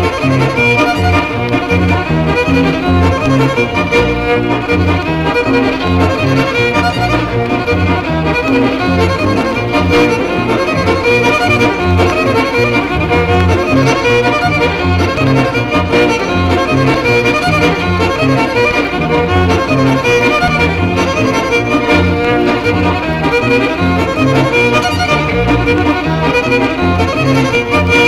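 An old-time fiddle reel played by a dance band, the fiddle carrying the tune over a steady, bouncing bass line.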